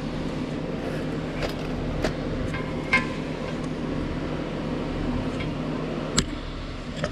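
A few scattered sharp clicks and taps of a 3/8-inch ratchet with extension at the plastic oil drain plug, the loudest about six seconds in, over a steady hum.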